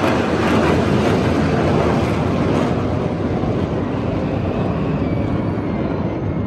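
Military aircraft flying past: loud engine noise that slowly fades as it moves away.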